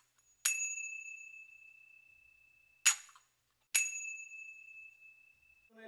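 Three clear strikes on a small metal chime, about half a second, three seconds and four seconds in. The first and last each ring out for about two seconds on one high clear tone; the middle one is stopped short.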